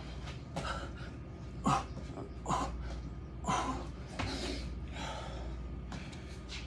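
A man breathing hard from exertion, with about five sharp, heavy exhales and gasps in the first four and a half seconds, then quieter breathing, over a steady low hum.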